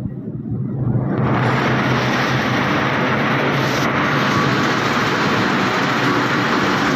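Plastic agglomerator running, its rotor churning a charge of HDPE fishing-net scrap, with a steady low motor hum. About a second in, a loud, steady, rushing noise rises over the hum and holds.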